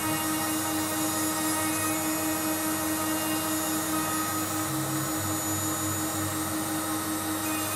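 isel CPM 2018 mini CNC router cutting a clearing pass in a block of wood, its spindle running steadily while the axes move the bit through the cut, together with a Henry vacuum running as dust extraction. One hum holds a single pitch throughout, and lower tones shift every second or so.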